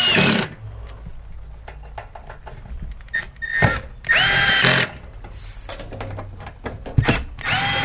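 Milwaukee 12-volt cordless screw gun, its clutch set at 12, driving screws into a steel electrical panel cover. It makes three short whirring runs that rise in pitch as the motor spins up: one ending about half a second in, one about four seconds in, and one near the end. A few clicks fall between the runs as the screws are positioned.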